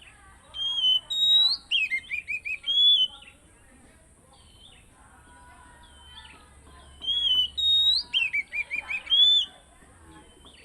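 Oriental magpie-robin (kacer) singing two loud, nearly identical song phrases a few seconds apart, each of clear whistled notes followed by a quick run of short falling notes.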